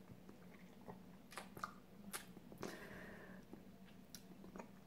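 Very quiet mouth noises: scattered faint clicks and lip smacks, with a soft breath a little past the middle.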